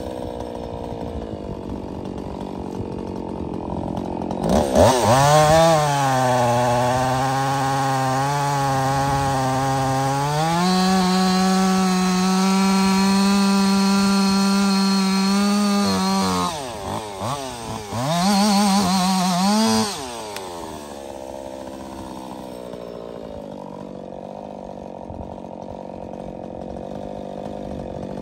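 Woods-ported Jonsered 2156 two-stroke chainsaw idling, then revved up hard about four seconds in and held at high speed for about twelve seconds, its pitch climbing a step higher partway through. It drops off, is blipped and revved again briefly, then settles back to idle.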